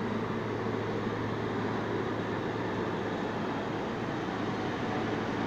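Steady rumble of an underground subway station with a constant low hum, as a train approaches through the tunnel.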